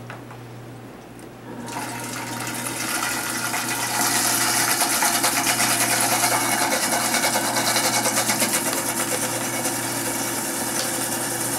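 Countertop blender switched on about two seconds in, building up to a steady loud whir at medium speed as it blends eggs with oil drizzling in to emulsify them into mayonnaise.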